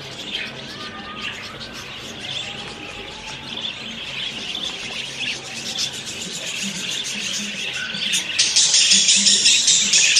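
Birds chirping and calling. A loud, rapidly pulsing rasp joins about eight seconds in.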